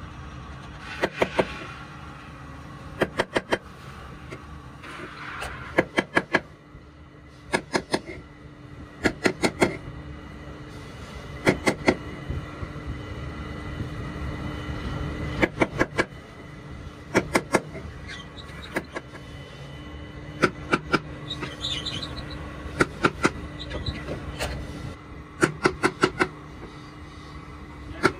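Small hammer tapping brass inlay pieces into drilled holes in a wooden hotpot lid, in quick groups of two to four sharp taps every second or two, over a steady low hum.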